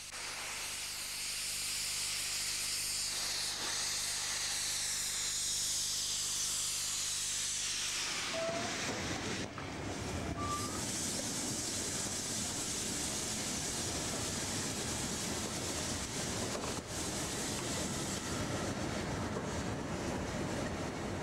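LMS Jubilee class 4-6-0 steam locomotive Kolhapur, in 'Silver Jubilee' livery, letting off steam. A steady high hiss, about eight seconds in, gives way to a lower, rougher rush of steam that stays steady to the end.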